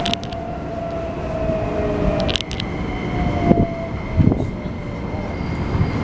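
Running noise of a Keikyu New 1000 series train heard from inside the car on its Toyo hybrid SiC VVVF inverter side: a thin inverter and traction-motor tone falls slowly in pitch over steady wheel and rail rumble, then fades out about four seconds in. A pair of sharp clicks comes about halfway through, and two low thumps follow.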